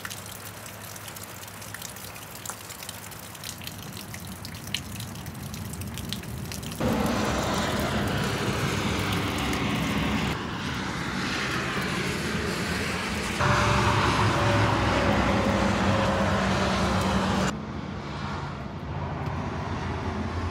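Rain falling, with water dripping and pouring off an RV awning in many small ticks, heard across several short clips that cut abruptly from one to the next. Under the louder later clips lies a steady low hum.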